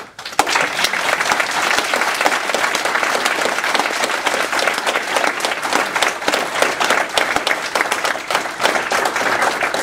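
Audience applause: many people clapping at once. It starts suddenly and keeps up steadily.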